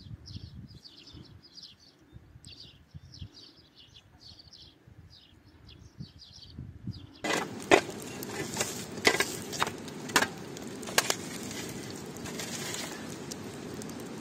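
A horse cropping and chewing grass, short soft crunches about three a second. About halfway through, a shovel working in a smoking charcoal pit among stones takes over: a steady crackling hiss from the embers, with several sharp scrapes and clicks from the blade, the loudest sounds here.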